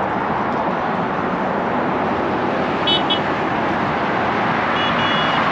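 Passing road traffic as a steady rush of noise, with two short, high-pitched horn beeps about three seconds in and a couple more near the end.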